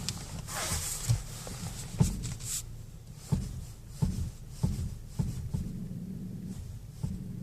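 Steering of a Ford Focus 3 with hydraulic power steering turned to full lock: a series of sharp metal-on-metal knocks, roughly one every half second to a second, with rubbing friction noise, over a low steady hum. The knock at full lock points to a fault in the steering rack.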